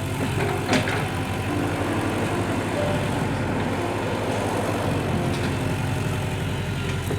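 Hydraulic excavator's diesel engine running steadily, with one sharp crack about a second in. Faint background music notes sit over it.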